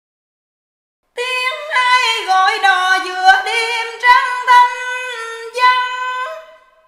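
A woman singing unaccompanied: one long, high, melismatic phrase in Vietnamese folk hò style, the pitch bending and wavering. It starts about a second in and fades out near the end.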